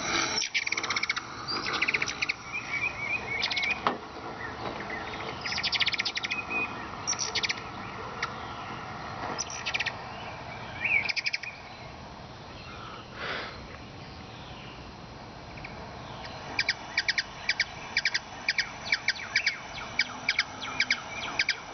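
Recorded hummingbird calls played through a speaker: scattered high twitters and chirps, then about three-quarters of the way through a fast, steady run of sharp chip notes.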